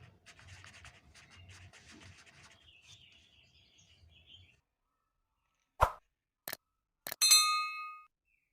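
Faint rapid clicking, then a pause, then two sharp clicks and a bright ringing ding that fades away in about a second.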